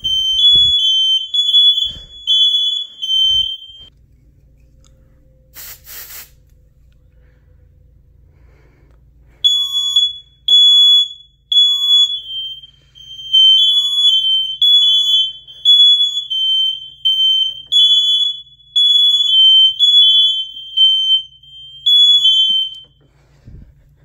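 Two smoke alarms set off by a test, sounding a loud, high-pitched repeating beep at two slightly different pitches, out of step with each other. The beeping stops after about three seconds, a short hiss comes about six seconds in, and the beeping starts again near ten seconds and runs until shortly before the end.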